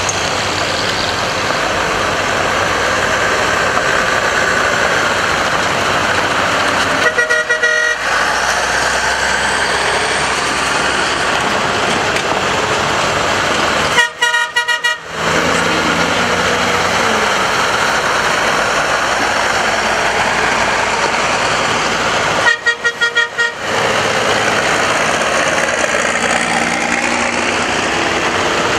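Military 6x6 trucks running steadily as they drive past in a line. A vehicle horn toots three times, about a quarter, half and three quarters of the way through; the second and third are each a few quick toots.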